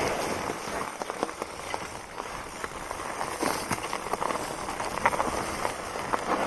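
Mountain bike rolling down a rocky forest trail: its tyres crunching and crackling over dry leaves, twigs and loose stones, with many small knocks and clicks as it runs over bumps.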